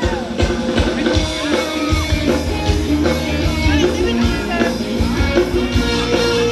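Live band playing upbeat Thai ramwong dance music: a steady drum beat under sustained melodic instruments and singing.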